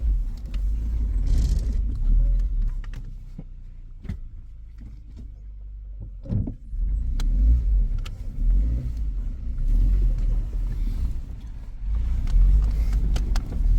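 Suzuki Jimny's engine running at low speed as it crawls over a rocky off-road track, with scattered knocks and clicks. The engine goes quieter for a few seconds in the middle, then picks up again.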